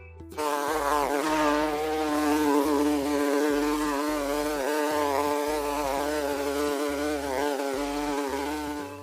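A flying insect buzzing continuously: a wavering hum of steady pitch with many overtones. It starts about half a second in and fades out near the end.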